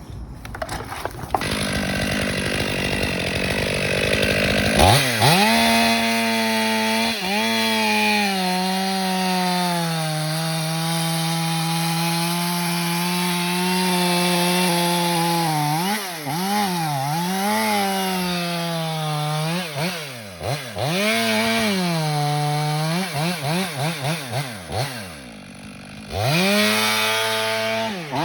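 Two-stroke chainsaw making a bore (plunge) cut into the trunk of a large red maple. It runs low for the first few seconds, then revs to full throttle about five seconds in. Its pitch dips and recovers several times as the bar loads in the wood and the throttle is eased. It falls back briefly near the end, then revs up again.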